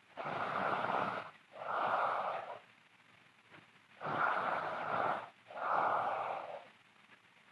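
A sleeping woman snoring loudly, two breaths each heard as a pair of rasping snore sounds about a second long with a short gap between them.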